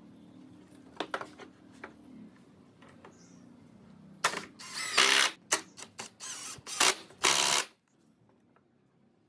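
Woodworking tool noise: a few sharp clicks, then from about four seconds in a run of short loud bursts of tool noise that stops abruptly near the end.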